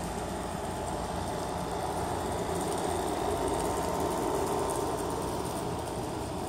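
Steady distant vehicle rumble that swells slowly to a peak midway and then eases off, like traffic passing by.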